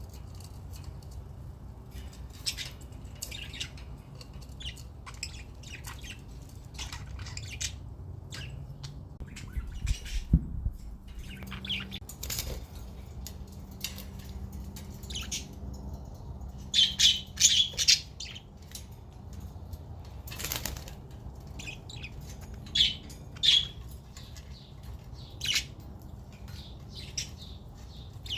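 Budgerigars chirping and squawking in short, sharp calls at irregular intervals, busiest about two-thirds of the way through.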